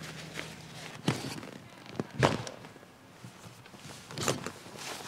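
Rustling and a handful of knocks and thuds as camping and bike gear is handled, the loudest knock a little over two seconds in.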